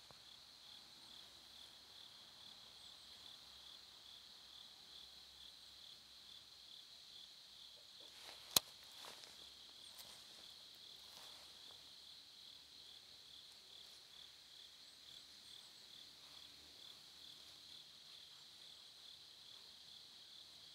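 Faint, steady chorus of insects chirping, a high pulsing trill. A single sharp click about eight and a half seconds in.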